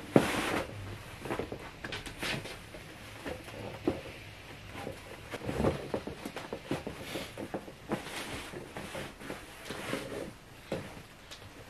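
Fabric rustling and brushing as a chair slipcover is pulled down over a chair and smoothed by hand, with a couple of light knocks midway.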